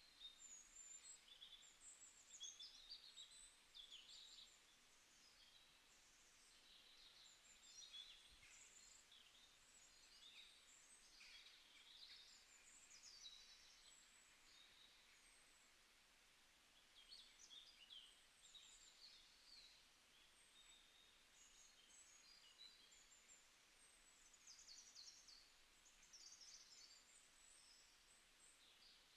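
Faint birdsong: several birds chirping and trilling in quick, high, overlapping phrases that come and go in clusters, over a low background hiss.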